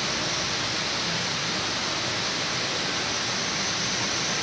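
Water falling in thin streams down the tall wall of a multi-storey indoor waterfall, a steady even rush.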